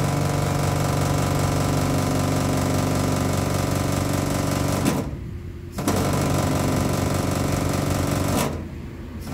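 Compressor of a coin-free tyre inflation station running steadily while a van tyre is pumped up to 5 bar. It cuts out briefly with a click about five seconds in, then runs again and cuts out near the end.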